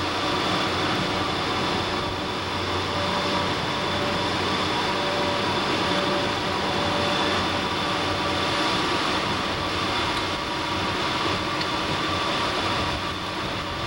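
Steady running noise heard inside a diesel locomotive cab under way: a continuous engine and rail drone with no sudden changes.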